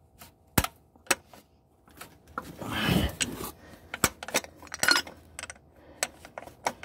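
Ratchet wrench clicking and clinking on a metal cap-style oil filter wrench while it tightens a plastic oil filter housing cap: scattered sharp metallic clicks, a quick run of ticks a little past the middle, and a brief rustling noise about three seconds in.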